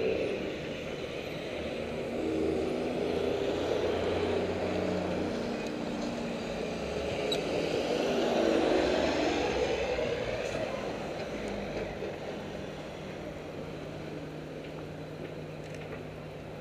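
City street traffic: motor vehicles passing close by, loudest near the start and again about eight to nine seconds in, with a steady engine hum underneath in the later seconds.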